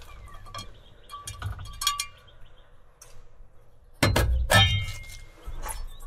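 Metal clinks and clanks as the sheet-metal end cover is worked off a water booster pump's electric motor: light ticks and short ringing clinks at first, then a few louder knocks with a ringing clank about four seconds in.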